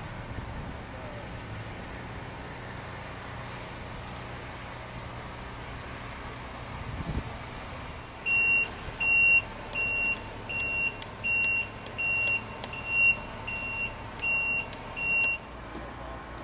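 A truck's reversing alarm beeping ten times, about one beep every 0.7 seconds, starting about halfway through. Under it runs a low, steady rumble.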